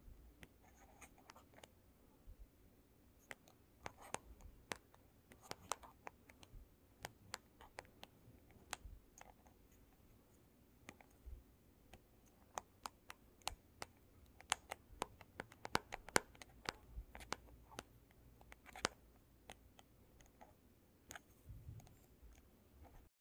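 Long fingernails tapping and scratching on a glossy black surface: many irregular, sharp little clicks of the nail tips, with short scratchy strokes between them.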